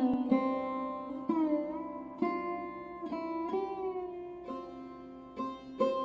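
Instrumental background music: a plucked string instrument plays a slow melody of single notes that ring on, some of them sliding in pitch, over a steady drone.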